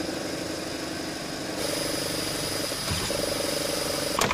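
Braille embossing printer running: a steady mechanical noise with several held tones, getting a little louder about a second and a half in.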